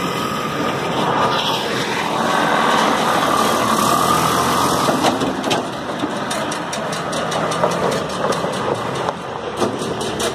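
A vehicle on the move: steady engine and road noise, with a run of short knocks through the second half.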